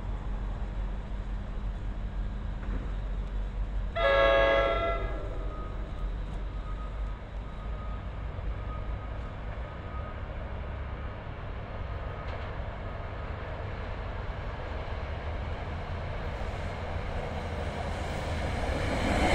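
Train horn blowing once about four seconds in: a short chord of several notes from a multi-chime horn, over a steady low rumble that grows louder near the end as a train draws closer.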